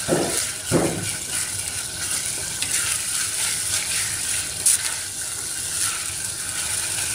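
Wooden spatula stirring and scraping thick masala gravy in a kadai over a gas flame, the gravy sizzling steadily as it cooks. There are two louder strokes in the first second.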